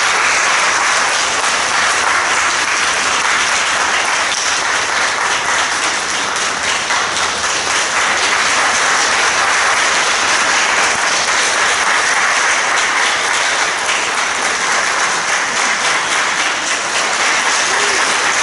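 Audience applauding: dense, even clapping that keeps up at a steady level.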